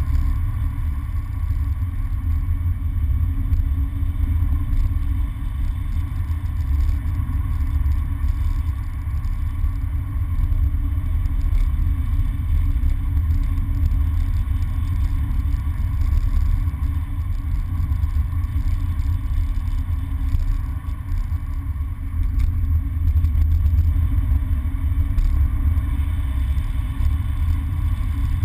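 Engine and tyre rumble of a Mini hatchback heard from inside the cabin while driving on a wet road, low and steady with small rises and falls in loudness.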